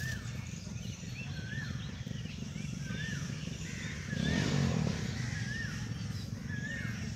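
A bird repeating a short up-and-down call about every second and a half, over a steady low rumble that swells louder for a moment a little past four seconds in.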